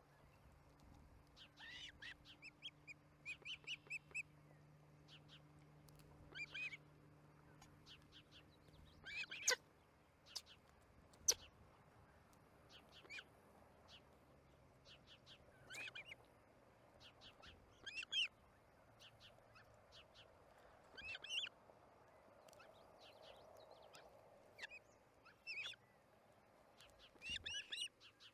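Ospreys calling at the nest: groups of short, high, whistled chirps every second or two. Two sharp clicks a little before and after ten seconds in are the loudest sounds.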